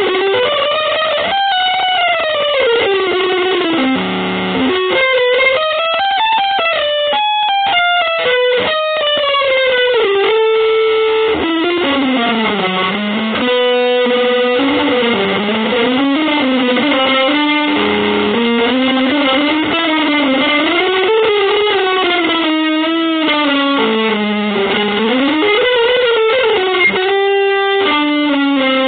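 Electric guitar playing a single winding melodic line that keeps sliding up and down in pitch, with quick runs in places.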